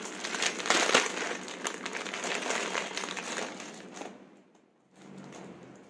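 Plastic wrapper crinkling and rustling as a necklace is unwrapped and pulled out of it, loudest about a second in and dying away after about four seconds.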